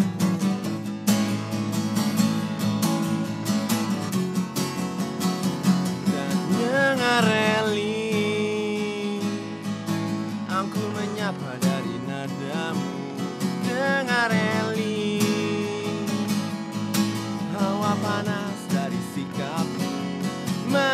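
Two acoustic guitars playing an instrumental intro: steady strumming with a picked melody line over it.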